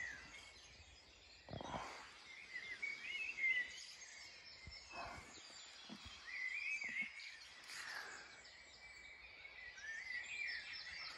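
Woodland birds singing in the dawn chorus: several birds' chirps and trills overlapping, quite faint. A few brief noises break in about one and a half, five and eight seconds in.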